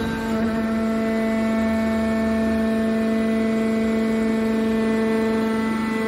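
Hydraulic power unit of a scrap copper wire baler running: the electric motor and hydraulic pump give a steady, even-pitched hum.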